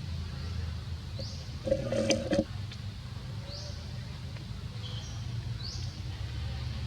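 Outdoor animal sounds: a short, high, rising chirp repeats about once a second over a steady low rumble. About two seconds in comes a brief pitched call with clicks, the loudest sound here.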